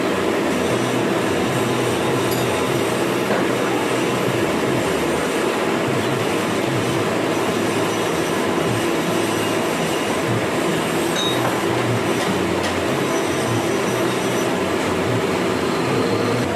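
Workshop metalworking machine running steadily, a continuous even noise with faint thin high tones above it.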